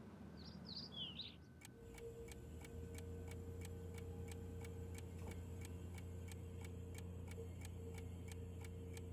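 A few faint bird chirps, then a steady ticking, about three ticks a second, over a low steady hum.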